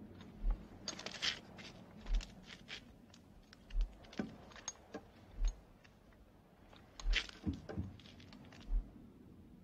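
A deep, low thud repeating evenly about every second and a half, like a slow pulse, with bursts of clicking, scraping and rattling between the beats as a wooden board and clothing are handled.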